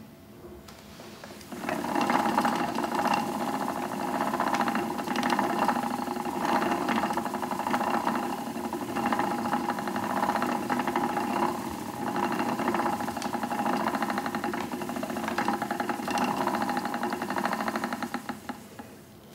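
Wooden treadle spinning wheel running while spinning wool, making a rapid, steady mechanical clatter. It starts about a second and a half in and stops just before the end.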